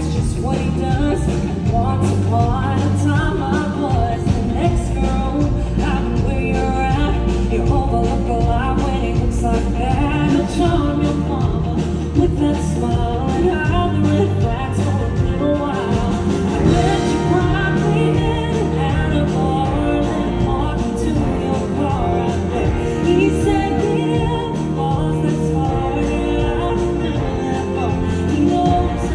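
A woman singing lead with a live country band: electric guitar, bass, acoustic guitar and drums playing steadily under her voice.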